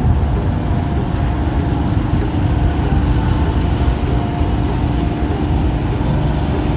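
An engine running steadily, a constant low rumble with a steady hum, such as drives the pump for the workers' floor-spraying hose.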